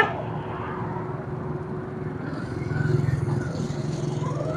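Small motorcycle engine running steadily, growing louder a little past the middle as the bike pulls away.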